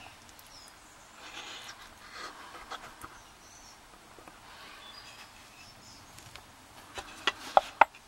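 Quiet bench noise with faint rustling, then near the end a few sharp clicks and knocks close together as a heavy metal padlock is handled and set against a wooden tray.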